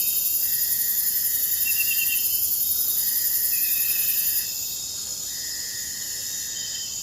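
Forest insect chorus: a steady, high-pitched insect drone that drops away about four and a half seconds in. Over it, a level call about a second long repeats every couple of seconds, with short chirping trills between.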